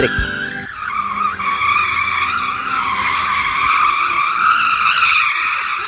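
Rear tyres of an electric-converted Ferrari 308 squealing on concrete in a smoky burnout: one long screech that wavers in pitch, with no engine note under it.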